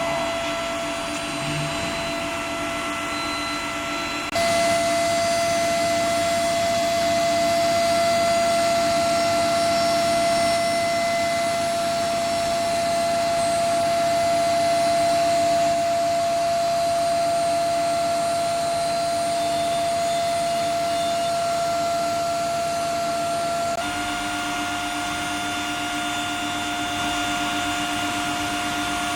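Steel pipe induction heat-treatment furnace line running: a steady whine over a whirring hum. The level and pitch of the tones shift abruptly about four seconds in and again near the end.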